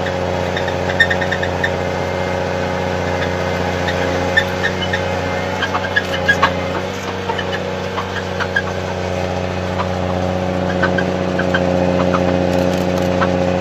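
Snowcat grooming machine's engine running steadily, heard from inside the cab, with scattered small clicks and rattles. The engine grows somewhat louder over the last few seconds.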